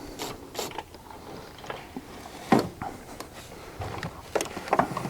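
Snap-on stubby ratchet clicking in irregular bursts while backing out a spark plug, with a few louder knocks of the tool; the loudest knock comes about two and a half seconds in, and a cluster comes near the end.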